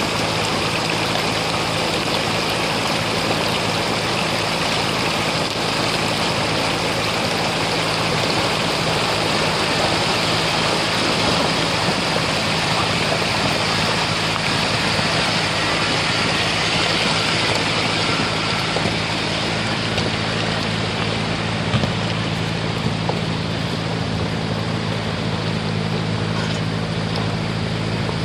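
Stream water rushing over rocks, a loud, even wash, with a steady engine hum underneath as a vehicle crosses through the shallow stream.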